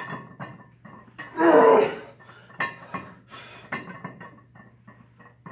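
A squatter breathing hard while standing with the loaded barbell on his back between reps of a high-rep set, with one loud gasping breath about a second and a half in and a fainter one near the middle.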